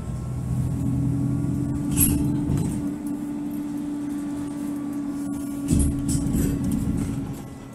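A vehicle running with a steady low hum and rumble and a faint whine above it, with a knock about two seconds in and a heavier thump near the end.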